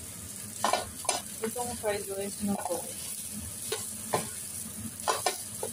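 Fried rice being stir-fried in a pan: steady sizzling, with a spatula scraping and knocking against the pan several times as the rice is tossed.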